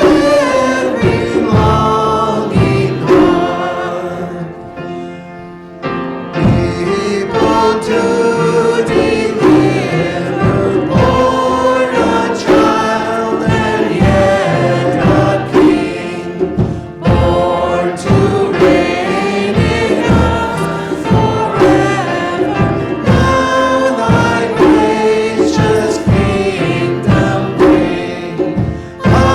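Choir singing with instrumental accompaniment, Christian worship music; it drops to a quieter passage about four seconds in and swells back to full about two seconds later.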